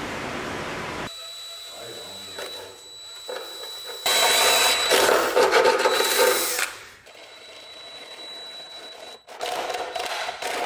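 DeWalt cordless drill running a step drill bit through the car's sheet-metal inner fender panel, enlarging a hole. A loud grinding cut starts about four seconds in and lasts a couple of seconds; after a quieter stretch it cuts again near the end with a rapid chatter. The first second is a steady hiss before the cut.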